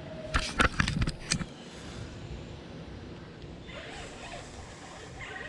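A quick cluster of sharp knocks and clatters lasting about a second, then a steady low background with faint voices toward the end.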